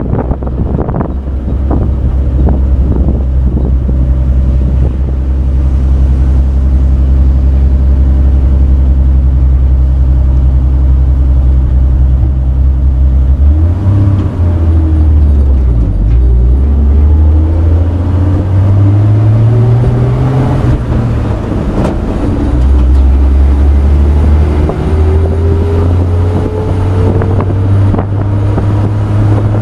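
A 1966 Chevrolet pickup truck's engine running on the road, heard from its open bed: a loud, steady low drone whose pitch shifts about halfway through and rises near the end as the truck speeds up.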